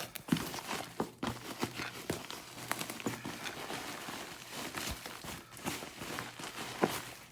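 Packaging being worked open by hand: irregular taps, scrapes and rustles of the wrapping and box.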